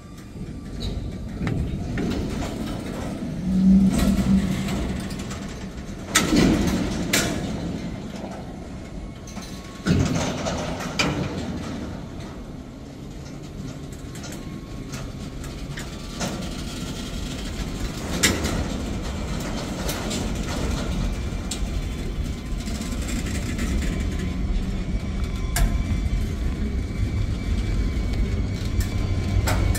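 Freight train boxcars rolling past: a steady rumble of steel wheels on rail, broken by loud metallic clanks and bangs every few seconds. A deeper engine hum builds near the end.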